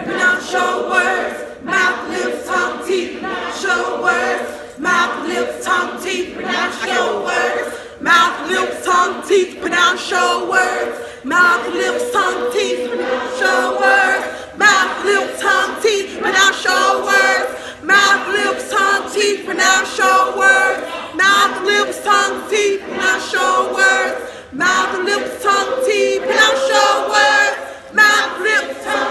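Gospel choir singing a cappella, many voices together, starting suddenly right at the beginning.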